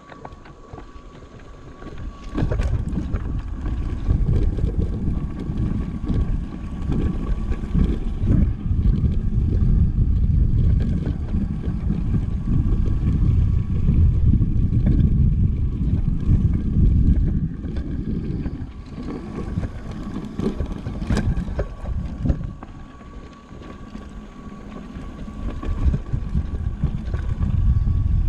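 Wind rumbling on the action camera's microphone together with the tyre noise and rattle of a Scott Voltage electric mountain bike riding fast down a rough dirt trail, with occasional knocks over bumps. Quieter at the very start and again for a few seconds near the end.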